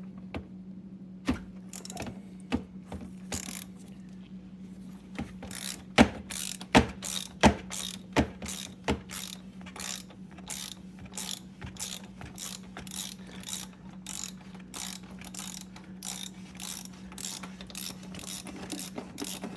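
Half-inch socket ratchet clicking as it unscrews the Mini Cooper S oil filter housing cap through a 27 mm socket and long extension. A few scattered clicks, five louder ones about six to nine seconds in, then an even run of clicks about two or three a second.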